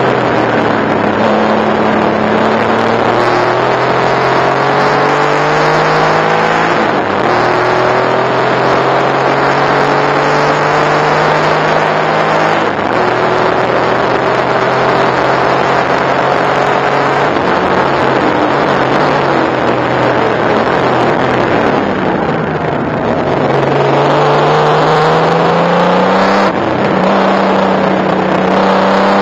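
Porsche 964 Turbo's air-cooled turbocharged flat-six heard from inside the cabin at racing speed. It climbs in pitch through the gears, with upshifts about 7 and 13 seconds in and a long pull after them. The revs fall away through downshifts around 18 to 22 seconds in, then climb again with another upshift near the end.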